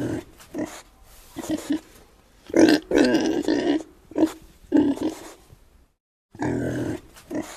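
Pig grunting: a string of short grunts, with a longer, louder grunt about three seconds in.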